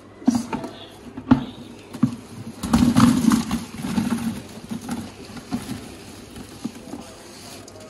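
Handfuls of spice-coated raw mango pieces dropped and tumbling into a plastic bucket: irregular soft thuds and patter, thickest about three seconds in.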